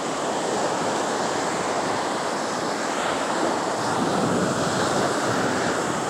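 Ocean surf breaking and washing up the beach, a steady rushing noise, with some wind on the microphone.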